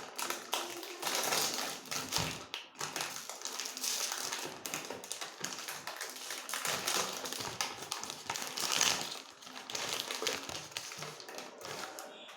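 Food packaging being handled and opened: a dense, uneven run of crackles and clicks.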